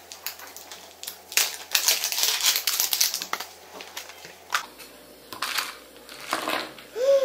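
Plastic crinkling and crackling as a small plastic Hatchimals toy egg and its wrapping are picked at and pried open by hand, busiest in the first half.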